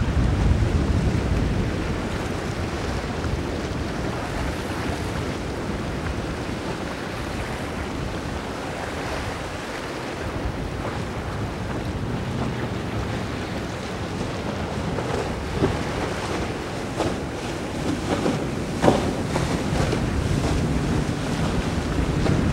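Wind buffeting the microphone over the steady wash of waves and boat wake. A few short thumps come in the later part, the strongest about 19 seconds in.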